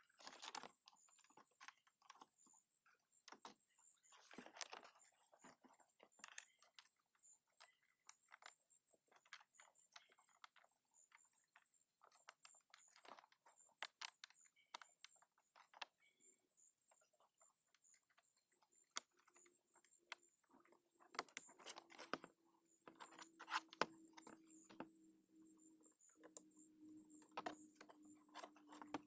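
Faint, scattered small clicks and taps of plastic door-panel trim and handle parts being handled and fitted. A faint steady low hum comes in a little past the middle.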